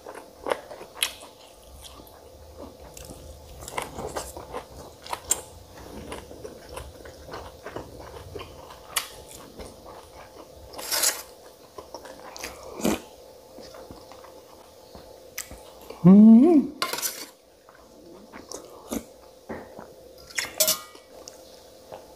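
Chewing with lip smacks, and a spoon and fingers clinking and tapping on a steel plate, over a faint steady hum. About 16 seconds in, a short, loud vocal sound rises in pitch.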